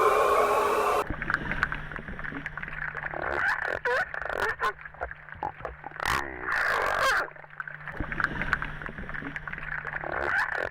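Seal calls. A gliding tonal call cuts off about a second in, followed by many short chirping, grunting calls and clicks over a steady low hum, with a louder, longer call about two-thirds of the way through.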